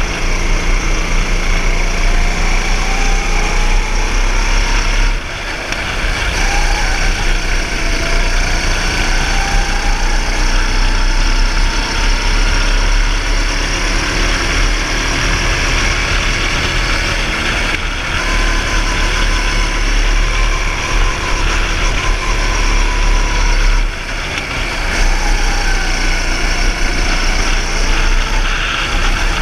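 Go-kart engine heard from onboard at racing speed, its pitch rising and falling as the kart accelerates and lifts off for corners, with brief drops in level about five and twenty-four seconds in.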